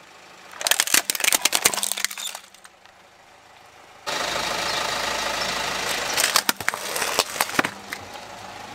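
Hard plastic toy tipper truck cracking and snapping under a car tyre, a rapid run of cracks lasting under two seconds. About four seconds in, a steady car engine sound starts suddenly, and a few more sharp cracks come a couple of seconds later.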